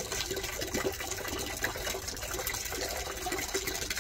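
Water poured from a plastic mug, splashing steadily over a wet dog's coat and onto the concrete below.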